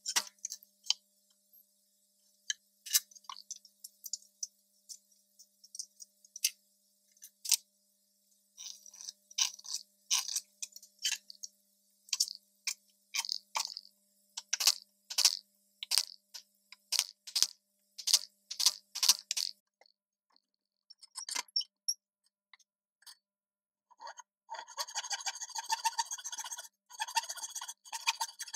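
Short scratching and tapping sounds of pencil and hand tools marking out a pine board on a wooden workbench, coming in irregular bursts with pauses between them. Near the end a faster, steady pulsing sound begins.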